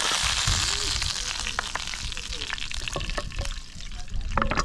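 Hot oil sizzling in a frying pan, fading after the first second or so, with metal tongs clicking against a china plate and a louder clink near the end.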